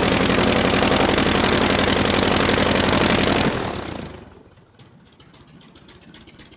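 Aircraft engine running steadily at a constant speed, then shut off about three and a half seconds in, its sound dying away within about a second. Faint scattered clicks follow.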